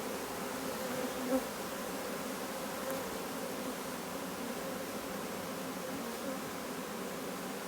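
A swarm of honey bees buzzing steadily in a dense, continuous drone of many wingbeats with wavering pitches as they mill around and settle into a new hive box.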